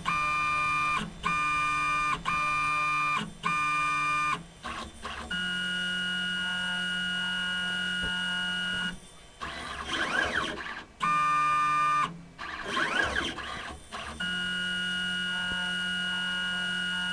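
Stepper motors of an automated pipetting robot whining as the arm moves: a series of short, evenly spaced one-second pulses, then long held steady tones a few seconds each. About ten and thirteen seconds in, two rougher, scratchier stretches come between the tones.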